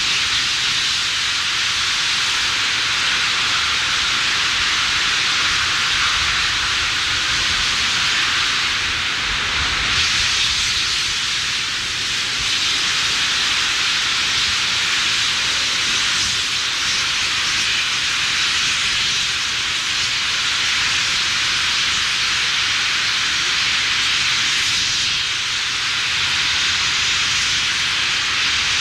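Mirage volcano attraction running: a steady rushing hiss from its gas flames on the lagoon and the water cascading down the volcano, with a weaker low rumble underneath.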